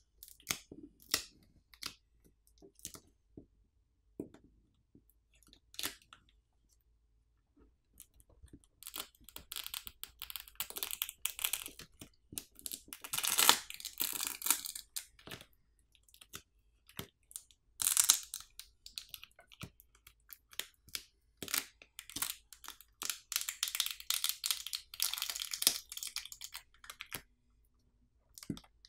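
Adhesive under a smartphone battery crackling and tearing as the battery is pulled and pried free of the phone's frame. Scattered clicks at first, then two long stretches of dense crackling, with the sharpest rips about halfway through.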